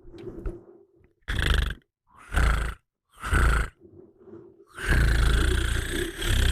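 A person snoring close into the microphone: three short, loud snores about a second apart, then one long drawn-out snore starting near the end.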